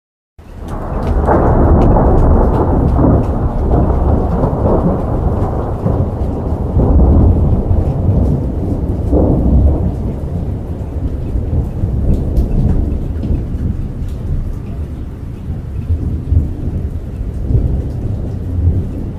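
Thunderstorm: a long, low rolling rumble of thunder over rain. It starts abruptly, is loudest in the first few seconds and slowly eases off.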